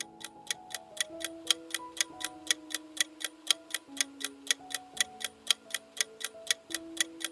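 Clock-like countdown ticking sound effect, about four ticks a second, timing the pause for answering a quiz question, over a soft, slow melody of held notes.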